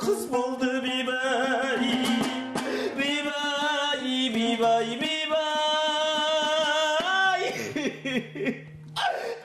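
Kazakh folk song: a singer holding long, wavering notes over a plucked dombra accompaniment, one note sustained for about two seconds midway before the voice drops away near the end.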